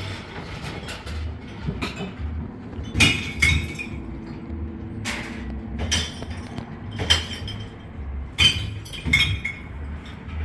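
A series of sharp clinks and knocks, about seven, spread irregularly, over a low steady throb.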